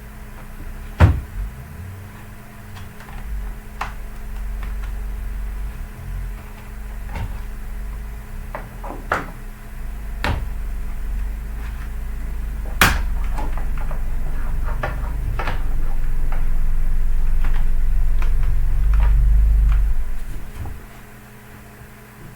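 Plastic clicks and knocks of a laptop being handled and worked on during disassembly, with a louder knock about a second in and another about halfway through. A low rumble of handling noise swells for a few seconds near the end, over a faint steady hum.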